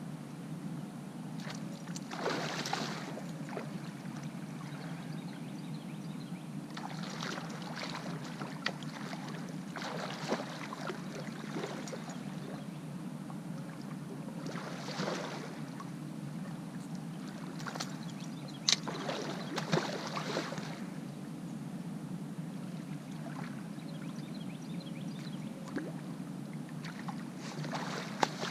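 Water slapping against the hull of a fishing boat in short splashy bursts every few seconds, over a steady low rumble. A couple of sharp knocks come about two-thirds of the way through and again at the very end.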